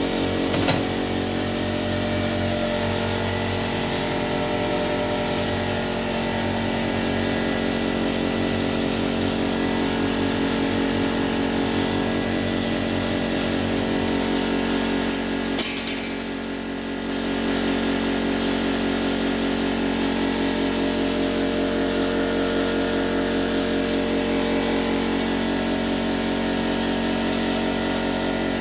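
Saw-sharpening grinder running, its wheel grinding the teeth of a large circular saw blade, over the steady drone of a generator engine. The sound drops briefly about halfway through, then picks up again.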